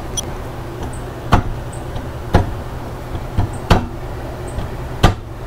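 Sharp metal knocks, four or five about a second apart, from a lock-nut wrench and ratchet being worked on an ATV's rear axle lock nut.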